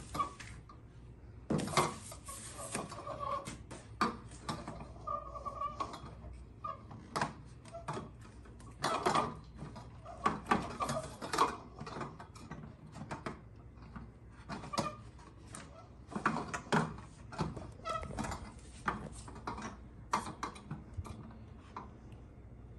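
Thin metal tubes and plastic connectors of a fabric closet frame knocking and clicking irregularly as a shelf level is pushed onto the level below, with a few short squeaks of tube sliding into plastic.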